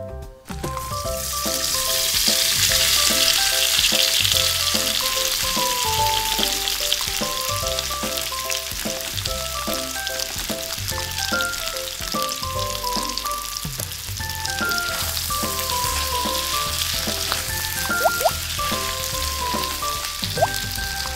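Cheetos-breaded chicken pieces deep-frying in hot oil in a small steel wok: a crackling sizzle that starts about a second in as the pieces go into the oil and is loudest over the next few seconds. A couple of sharp clicks sound near the end.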